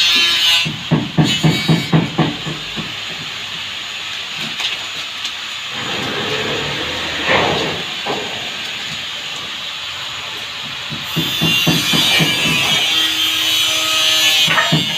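Background music with a regular beat, dropping to a quieter, hissy passage for several seconds in the middle before the beat comes back near the end.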